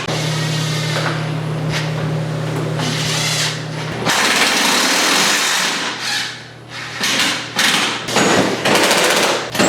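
Handheld power tool running in long pulls while driving fasteners: one steady run of about four seconds, a second run right after, then several short bursts near the end.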